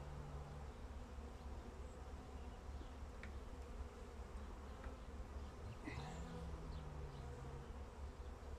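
Honeybees buzzing around an opened hive, with single bees flying close in passes: a low buzz that rises in pitch as a bee comes near, then holds for a second or two. A few light clicks of the metal hive tool on the wooden frames.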